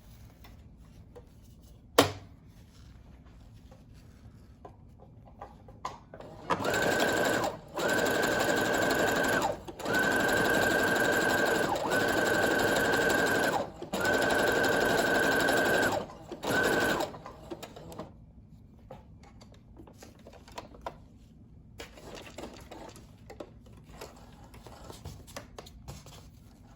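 Brother CS6000i computerized sewing machine stitching in six short runs of one to two seconds each with brief stops between, its motor giving a steady high whine. A single sharp click comes about two seconds in, and faint clicks and rustles of handling come before and after the sewing.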